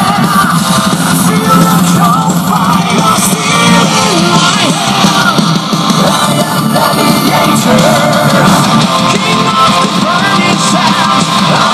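Rock music with singing and guitar played loud through Tevion two-way bookshelf speakers, heard in the room.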